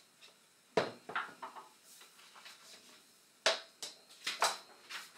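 Props being put down and picked up out of sight: a series of short knocks and clatters, about eight in all, the loudest about a second in and about three and a half seconds in.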